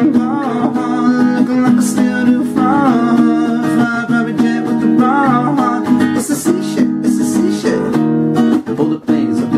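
Acoustic guitar playing steadily, with a voice singing short wordless runs over it three times.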